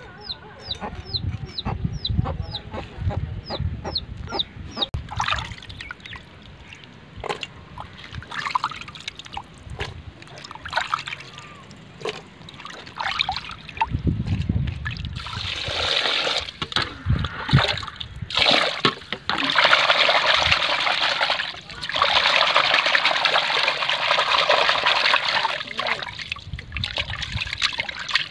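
Small fish being washed by hand in a clay pot of water: the water sloshes and splashes, in long loud stretches through the second half. Near the start there is a quick run of high chirps, about four a second, along with scattered light clicks.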